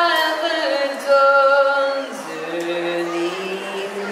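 A boy singing solo into a microphone, holding long notes that step down to a lower pitch about halfway through.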